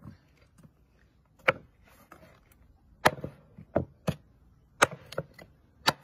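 A heavy cleaver chopping on wood, about eight sharp, separate knocks at uneven intervals starting about a second and a half in.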